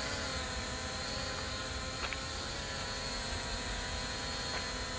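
DJ1 foldable quadcopter drone hovering, its four propellers and motors giving a steady whine that holds an even pitch.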